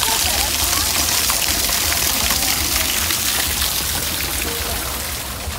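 Water splashing steadily into a rock pond, an even rushing hiss that eases slightly toward the end.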